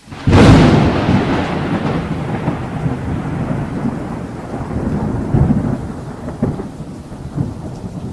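Thunder sound effect for a channel intro: a sudden loud clap just after the start, then rolling thunder with a rain-like hiss and a few sharper cracks, slowly fading.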